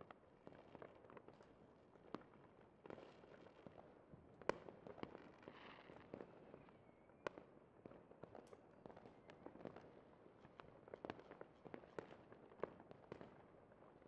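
Fireworks display going off: an irregular, faint scatter of pops and cracks, with the sharpest bang about four and a half seconds in.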